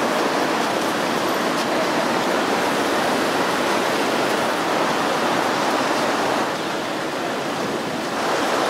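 Steady, dense city street din of traffic and passing pedestrians, easing slightly for a second or two near the end.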